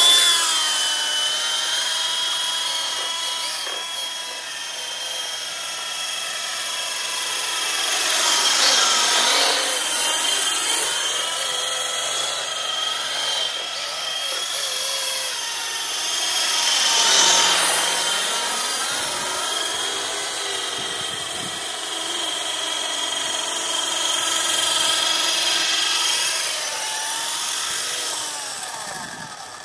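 Small electric single-blade RC helicopter (F645) flying: a high motor-and-gear whine over the rotor's hum. Its pitch dips and climbs again about 9 and 17 seconds in, where it is loudest, and it dies away near the end.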